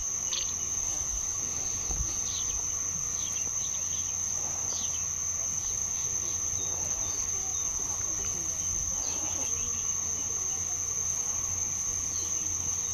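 Insects making a steady, high-pitched drone, with short high chirps now and then.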